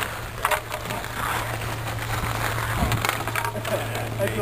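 Ice skates scraping and hockey sticks clattering on rink ice, with a few sharp clicks and knocks, over a steady low hum.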